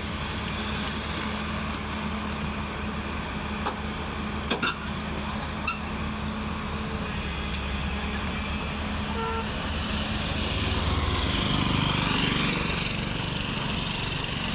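Excavator's diesel engine running steadily under load, with a few sharp metallic knocks about four to six seconds in, and growing louder for a couple of seconds near the end.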